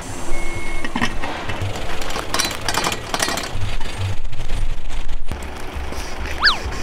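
Tow truck engine running under scattered metal clanks and rattles as the car comes off the wheel-lift and a rear wheel is chocked. A short falling chirp sounds near the end.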